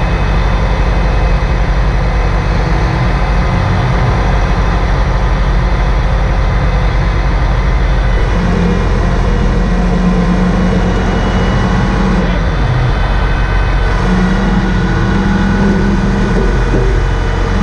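Heavy diesel engine running steadily and loud, its note shifting slightly about eight seconds in and again about fourteen seconds in.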